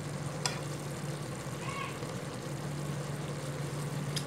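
Pork chops simmering in sauce in a metal wok over the stove: a steady low hum and hiss, with a couple of light clicks of a spoon.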